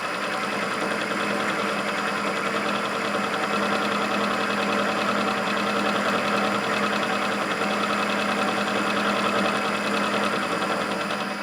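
Clausing 8520 vertical milling machine running with its cutter milling a flat on a T-nut: a steady motor hum with a fine, even cutting chatter over it, easing off near the end.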